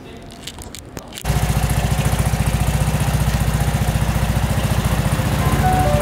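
Vespa scooter's single-cylinder engine comes in suddenly about a second in and runs steadily with a fast, even putter.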